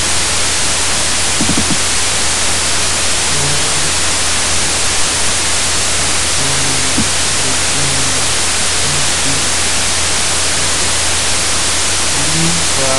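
Steady loud hiss with a low electrical hum underneath: the recording's own background noise while no one speaks, with a few faint low tones here and there.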